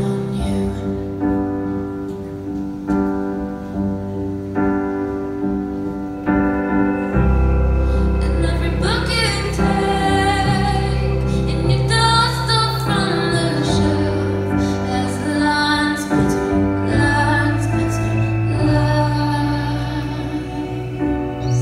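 Indie rock band playing live. For the first seven seconds a chord repeats evenly, about once a second. Then the band comes in fuller with heavy bass, and a woman's voice starts singing soon after.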